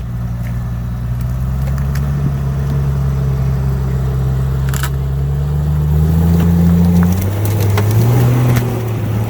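A modified off-road rig's engine pulls under load while it climbs over rocks, its pitch rising slowly for several seconds and then changing. There is one sharp crack about five seconds in, and scattered clicks and crunches near the end.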